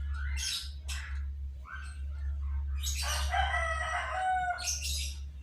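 A rooster crowing once, a call of nearly two seconds starting about three seconds in, over a steady low hum.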